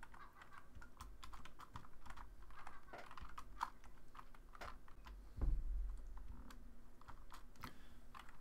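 Computer keyboard typing: irregular keystroke clicks, with one louder low thump about five and a half seconds in.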